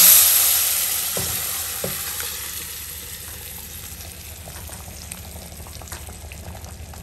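Hot tempering oil with dried red chillies and curry leaves in a clay pot sizzling as cooked spinach dal is poured onto it. A loud sizzle starts suddenly and dies down over the first few seconds to a faint, steady crackle, with two soft knocks about a second in.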